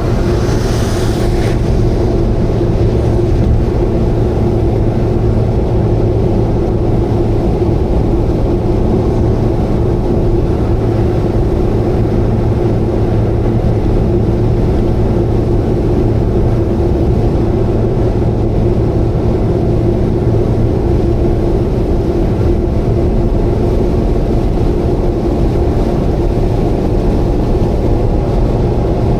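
Subaru Vivio kei car running at a steady expressway cruise: an even, unchanging engine and road drone. A brief hiss comes in about a second in.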